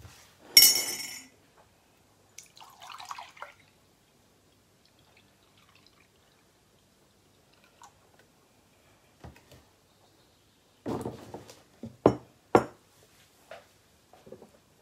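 Milk poured from a carton into a glass measuring jug, with a sharp crackle about half a second in and a cluster of knocks near the end as the carton and jug are set down on a wooden table.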